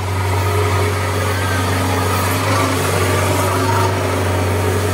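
Diesel engine of a Kubota DC60 combine harvester running steadily at an even, unchanging speed, with a constant low hum.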